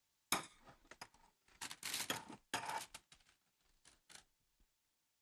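Soft, irregular taps and rustles of hands pressing and rolling baguette dough on a floured worktop, with a few small clicks.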